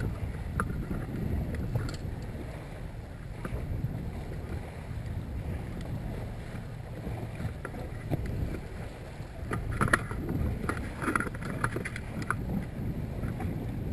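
Small open-bow boat trolling slowly through light chop: wind buffeting the microphone with a steady low rumble, and water slapping against the bow a few times about ten seconds in.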